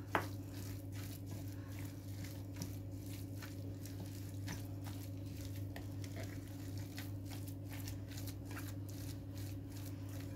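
Wooden spoon stirring and folding mashed boiled potato with grated carrot, chopped herbs and oil in a bowl: soft, repeated squishing with light scrapes, and a sharper tap just after the start, over a steady low hum.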